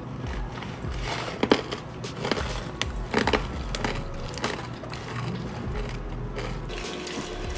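Crunchy snack being eaten: sharp crunches and crackles, one every second or so, over a steady low hum.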